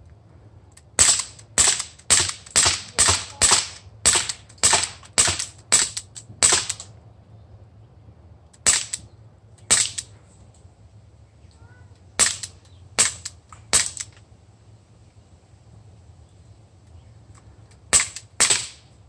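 Walther CP99 Compact CO2 BB pistol with blowback slide firing a string of sharp cracks: about a dozen in quick succession at roughly two a second, then scattered single shots and a few quick ones, and a fast trio near the end.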